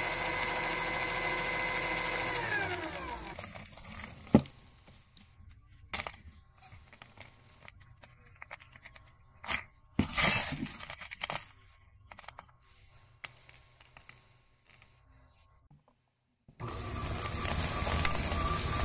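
Paper shredder converted to shred 3D-printer plastic, its motor and cutters running with a steady whine, then winding down in pitch to a stop about three seconds in. A quieter stretch follows with a sharp click and scattered rustling clicks of shredded plastic chips being stirred by hand. The shredder starts up again abruptly near the end.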